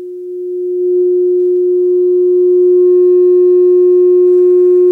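A steady 360 Hz sine test tone played through a small woofer in a 3D-printed scale subwoofer enclosure, driven toward its 15-watt power limit. It swells in level over the first three seconds as the amplifier is turned up, then holds, and a rough, raspy edge joins about four seconds in.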